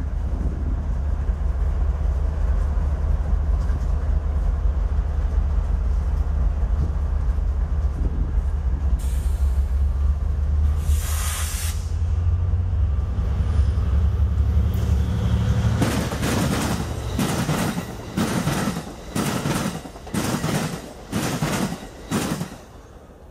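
Amtrak Pacific Surfliner passenger train approaching with a steady low rumble, then passing close by, its wheels clattering in a rhythm of about one burst a second as the bi-level cars go past. The clatter stops abruptly near the end.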